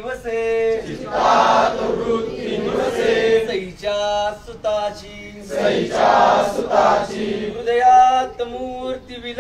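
A group of voices chanting a Marathi devotional verse in unison, drawn-out sung phrases with short breaks between lines.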